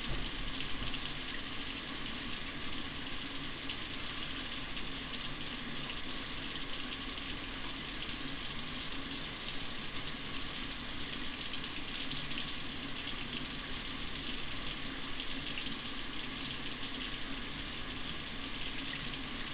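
Hot water running steadily from a tap fed by a tankless water heater, a constant even rush with no change in it.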